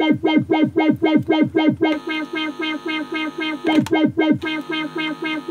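Maplin 5600S analogue synthesiser playing a fast repeating note, about four a second, each note with a quick downward sweep. About two seconds in, the tone turns brighter and buzzier for a couple of seconds, then the sweeps return. No mains hum sits under it now that its output is grounded.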